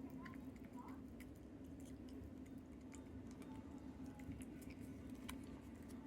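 Siamese cat eating a treat, a run of small wet clicking mouth sounds, over a steady low hum.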